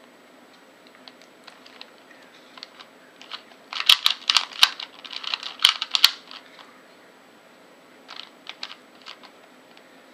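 LanLan 2x2 puzzle cube's plastic layers clicking as they are turned by hand. Scattered light clicks, then a dense quick run of turns in the middle and a few more clicks later.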